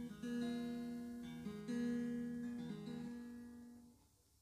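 Background music on acoustic guitar: slow held notes changing about once a second, fading almost to silence near the end.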